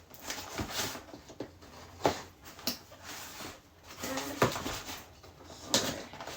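Packaging being opened and items handled: irregular rustling with scattered clicks and knocks.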